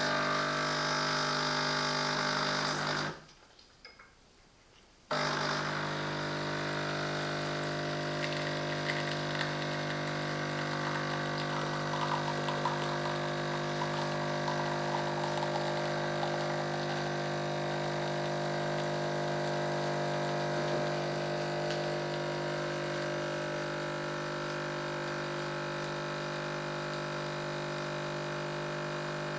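Espresso machine pump running with a steady buzzing hum while brewing a double shot, stopping briefly about three seconds in and starting again about two seconds later.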